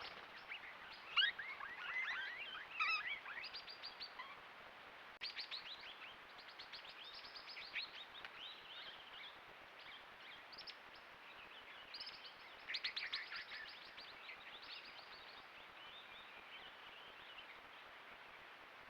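Several swift parrots calling: bursts of rapid, high, sharp notes that overlap. The calls are loudest in the first few seconds and again about two-thirds of the way through, with sparser calls between.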